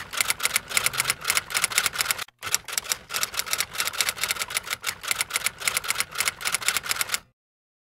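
Rapid, even mechanical clicking, about nine clicks a second, with a brief break about two seconds in; it cuts off suddenly near the end.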